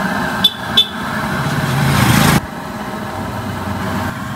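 Street traffic noise with a vehicle engine running. Two short sharp clicks come about half a second and just under a second in, and the noise then builds and cuts off suddenly about halfway through.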